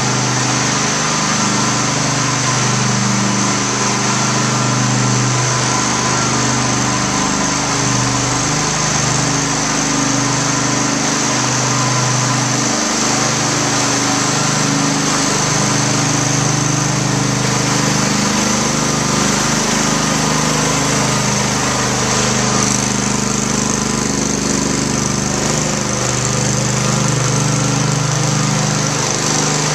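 Small engine of a propane-powered walk-behind floor burnisher running steadily at working speed, its pad spinning against the tile floor, a loud, even drone.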